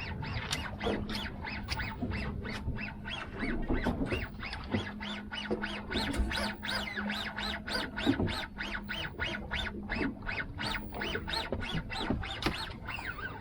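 Birds calling rapidly and repeatedly, about three to four harsh calls a second, over a steady low hum.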